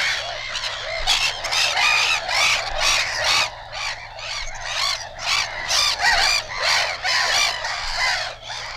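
Gulls crying: a rapid series of harsh, repeated calls, several overlapping, played from a flexi-disc record.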